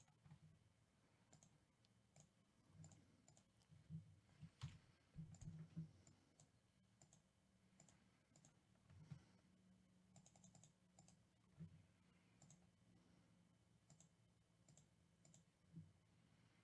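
Faint, scattered computer mouse clicks with a few soft knocks, over near silence.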